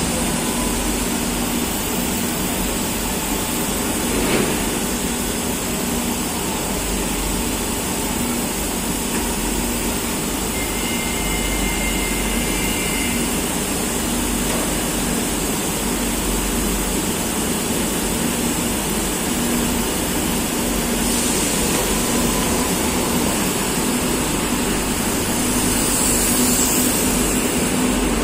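Madrid Metro 2000A series train standing at the platform with its doors open, giving a steady hum of on-board equipment under the noise of the underground station. A short two-note electronic tone sounds in the middle. Near the end the train starts to pull away and the sound grows louder.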